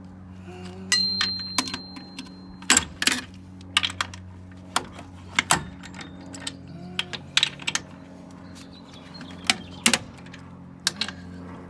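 Metal clinks and knocks of a wrench and lug nuts being handled, irregular and sharp, one ringing briefly about a second in, over a steady low hum.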